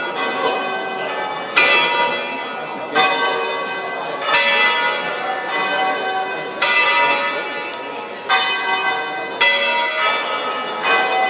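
Three smaller bells of the Basilica of Santa Maria Maggiore in Bergamo (bells 2, 3 and 4 of its ring of eight) swinging in a full peal (distesa), strikes coming every one to two seconds and each ringing on into the next. This is the weekday peal rung a quarter of an hour before weekday Mass.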